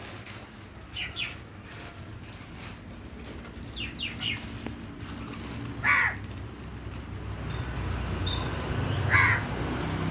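Birds giving short, harsh calls a few seconds apart, the loudest about six and nine seconds in, over a low background rumble that grows louder toward the end.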